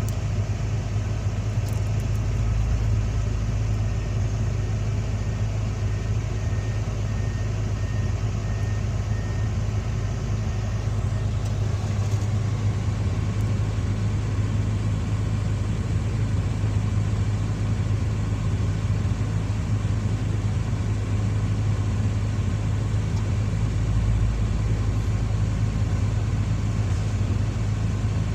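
Excavator's diesel engine running steadily with a low, even drone.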